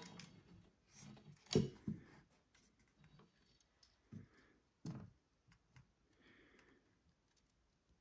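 Faint handling noises from a metal clock chassis being turned over in the hands: a few soft knocks and clicks, the loudest about a second and a half in and two more around the middle, with a brief light rustle near the end.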